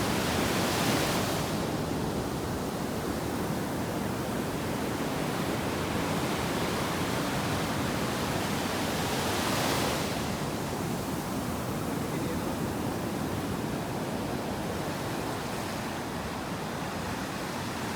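Sea waves breaking on a sandy beach: a steady rush of surf, with two louder breakers washing in, one about a second in and another about ten seconds in.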